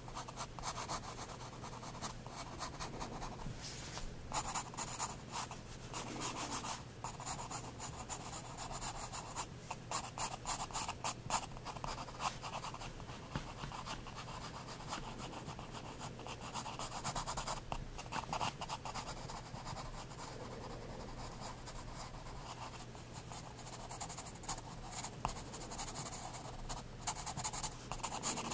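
9B graphite pencil scratching across sketchbook paper in short, irregular strokes with brief pauses between them, over a faint steady low hum.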